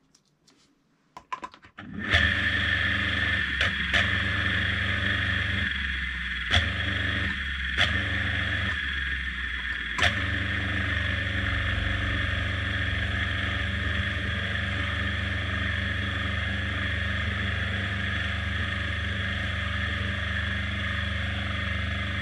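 Old washing machine electric motor switched on about two seconds in and running steadily, with a strong low hum and a steady high whine. A few sharp clicks or knocks come over it in the first several seconds.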